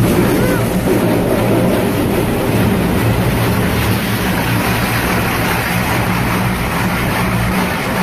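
Automatic car wash tunnel heard from inside a car's cabin: water spray rushing and drumming steadily on the windshield and roof, over a steady low hum.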